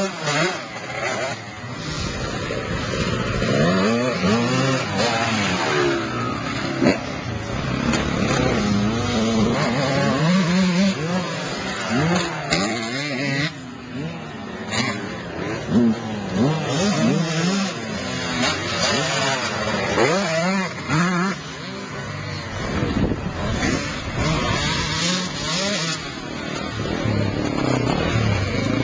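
Off-road motorcycle engine revving up and down again and again, its pitch rising and falling every second or two, with a few sharp knocks.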